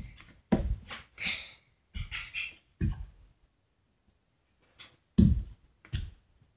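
Irregular short knocks and thuds as a plastic Play-Doh tub is pressed down onto flattened modelling dough on a hard table, with a pause in the middle.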